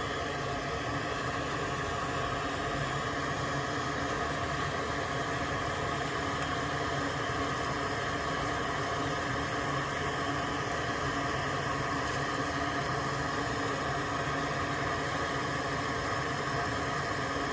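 Steady whirring hum of a small electric fan or motor, holding several fixed tones with no change in pitch or level.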